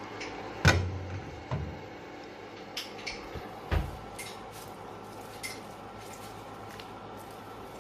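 Cooking utensil knocking and clattering against a pan while vegetables are stir-fried, a string of sharp knocks with the two loudest about a second and nearly four seconds in, then lighter clicks, over a steady low background.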